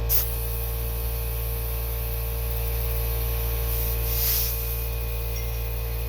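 Air compressor running with a steady hum and a hiss of air as a tractor tire is inflated to reseat its bead. One sharp knock comes right at the start: a mallet tapping the tire at the bead. A brief louder hiss follows about four seconds in.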